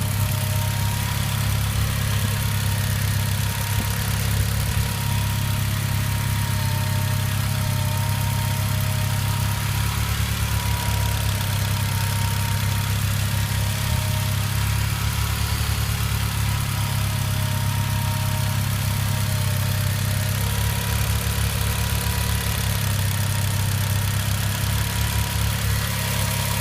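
Engine idling steadily with a clicking sound.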